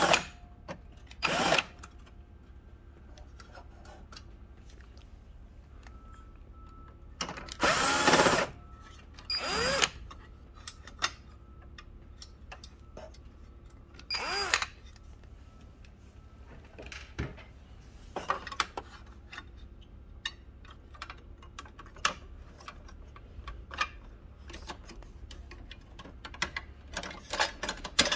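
Screws being driven out of the sheet-metal plate over a copier's manual bypass tray with a screwdriver: four short whirring, scraping bursts about a second long in the first half. In the second half come scattered light clicks and taps of metal parts being handled.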